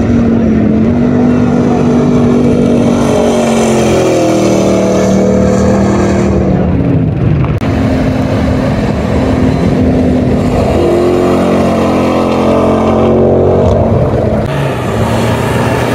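Off-road rally vehicles racing past at full throttle, their engines loud and steady, with the engine pitch climbing and dropping several times as they pass.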